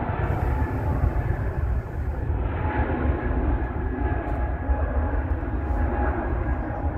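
Jet engines of an easyJet Airbus A320-family airliner running as it rolls along the runway: a steady roar with a deep rumble underneath and a thin steady whine on top. A faint high hiss lies over the first couple of seconds.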